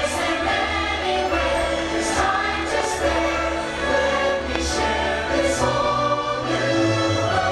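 Fireworks-show soundtrack music with a choir singing long held notes.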